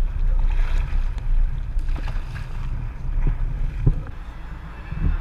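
Fishing boat underway offshore: a steady low engine rumble, with wind buffeting the microphone and a couple of light knocks in the second half.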